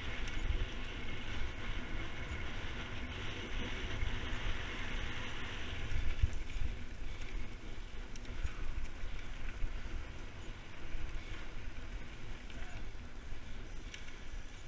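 Mountain bike rolling fast down a dirt singletrack: steady tyre-on-dirt and bike noise, with wind buffeting the microphone in an irregular low rumble.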